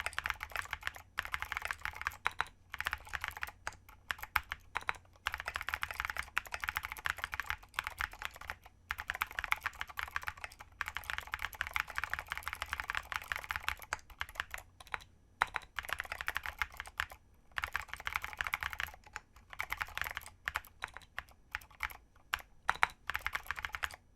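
Fast continuous typing on a plateless mechanical keyboard with lubed vintage Cherry MX Blue clicky switches and SA-profile keycaps, a rapid run of keystrokes broken by a few short pauses.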